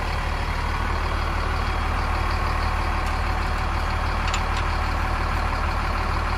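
Diesel truck engine idling steadily with a low hum. About four seconds in there are a few faint clicks as the fuel cap is screwed onto the tank.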